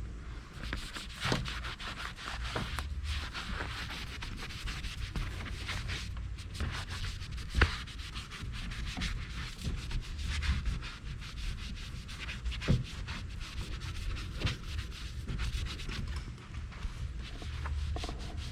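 Magic eraser scrubbing black scuff marks off a kayak's hull in steady back-and-forth rubbing strokes, with a few sharp knocks.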